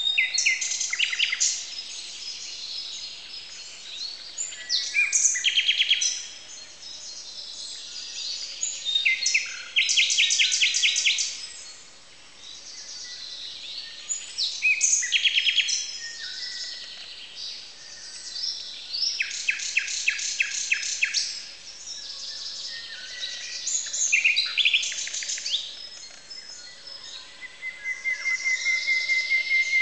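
Dawn chorus dominated by a common nightingale, singing loud phrases of rapid repeated notes and trills every few seconds, with many other songbirds singing under it. Near the end comes a row of whistled notes growing steadily louder.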